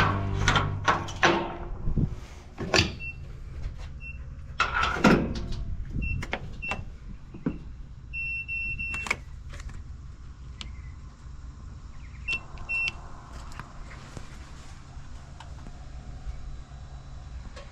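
Fuel pump keypad beeping as buttons are pressed: several short high beeps, one longer beep about eight seconds in, and two more about twelve seconds in. Sharp clicks and knocks of handling the pump and nozzle come in between, over a low steady hum. A faint steady hiss begins about twelve seconds in.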